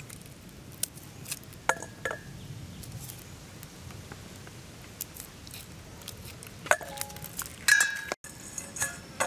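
Garlic cloves dropped into a stainless steel bowl, each landing with a sharp metallic clink that rings briefly; a pair of clinks about two seconds in and a cluster near the end, with faint small clicks of garlic being peeled in between.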